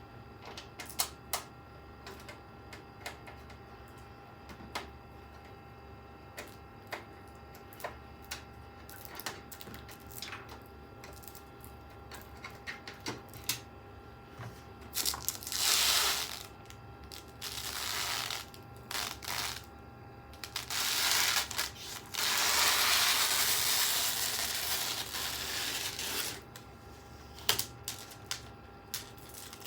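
Hands unpacking a new PC case: scattered light clicks and knocks of plastic and metal parts being handled. In the second half come several loud rasping stretches of plastic wrapping or film being torn and peeled off, the longest lasting about four seconds.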